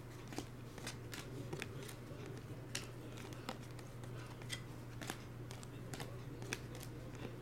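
Glossy chrome trading cards being slid one at a time off the front of a hand-held stack: faint, irregular ticks and slides of card stock against card stock, over a steady low hum.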